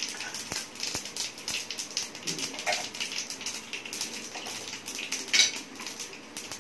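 Cumin seeds and asafoetida crackling in hot oil in a frying pan: the tempering stage, the oil hot enough for the seeds to splutter. It is a run of irregular small pops, with one louder pop about five and a half seconds in.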